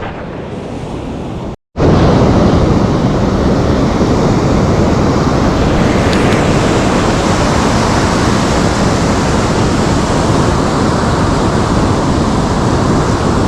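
Sea surf washing on the shore with wind on the microphone, a steady rushing noise. It cuts out for an instant about two seconds in and comes back louder.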